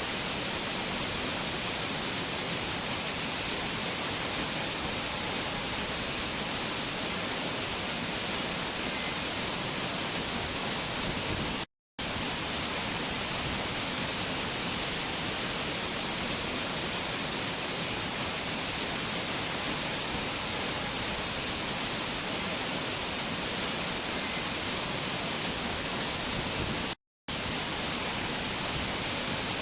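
Waterfall: a steady, even rush of falling water with a strong hiss, broken twice by a split-second gap of silence.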